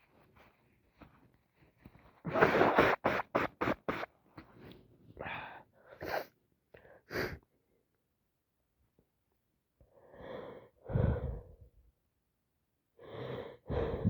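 A person sneezing again and again during an allergy attack: a quick run of short sneezes and sharp breaths about two seconds in, a few more a little later, then two more pairs of louder sneezes with gasping breaths in the second half.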